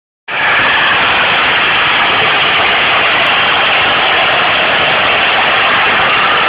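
Farmtrac 65 diesel tractor running under way with an 8-foot rotavator churning the soil, a loud steady mechanical noise that cuts in abruptly just after the start.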